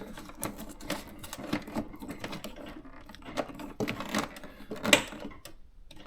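Electronic thermal typewriter printing: a fast, even run of fine mechanical ticks from the carriage and print head, with a few louder clicks along the way.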